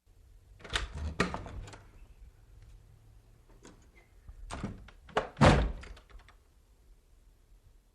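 A series of sharp thuds and knocks in two clusters, a few strikes just under a second in and more around four and a half to five and a half seconds in, the loudest a heavy thunk near the end of the second cluster.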